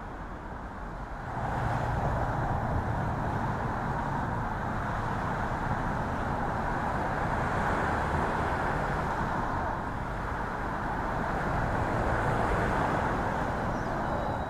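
Steady downpour of rain, an even hiss that grows heavier about a second and a half in and then holds.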